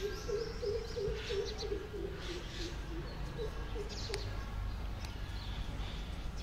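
A pigeon cooing: a run of low notes for the first two and a half seconds, then a few more after a short pause, with fainter higher chirps of other birds.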